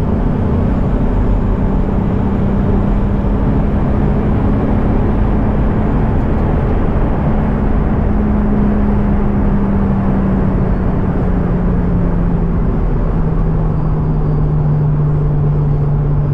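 Car engine and road noise while driving at a steady speed, the engine note easing slightly lower about three-quarters of the way through.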